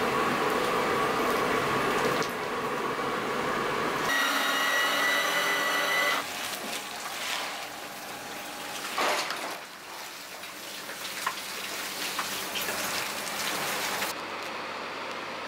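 A big vat of water at a rolling boil, bubbling and hissing as mantis shrimp are stirred in it. Then a steady machine whine for about two seconds, followed by scattered clicks and rattles as the cooked shrimp are handled in plastic crates.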